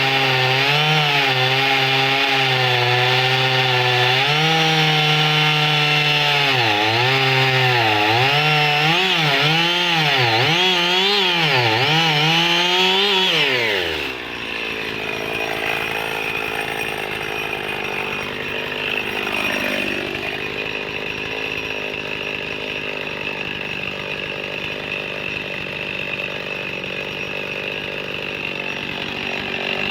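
Husqvarna 55 two-stroke chainsaw running and cutting thick logs, its revs repeatedly rising and falling under load. About halfway through, the sound changes abruptly to a quieter, rougher running.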